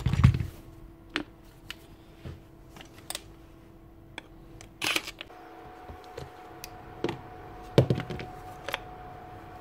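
Clicks and knocks of plastic and metal drill parts being handled on a workbench, with a heavier thump right at the start and another near the end.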